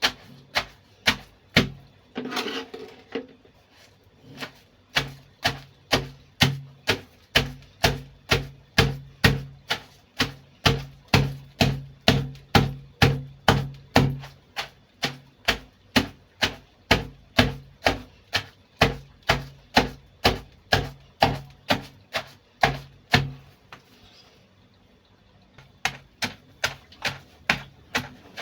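Pestle pounding cassava leaves in a mortar, in a steady rhythm of about two strikes a second, each a sharp knock with a low thud, mashing the leaves. The pounding breaks off briefly a few seconds in and again near the end, then starts again.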